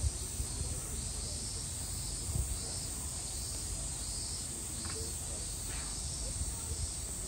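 Insects, typical of a summer cicada chorus, buzzing steadily with a pulsing higher band that swells and fades about every second, over a low rumble.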